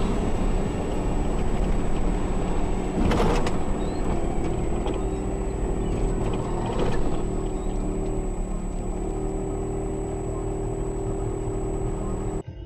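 A car's engine and road noise from inside the cabin, heard through a dashcam, with a steady high whine throughout and two short louder noisy bursts about three and seven seconds in.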